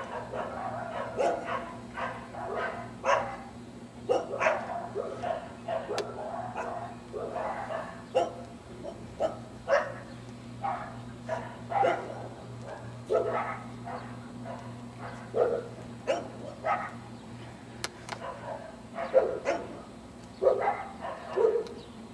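A dog barking repeatedly, in short, irregular barks, over a steady low hum.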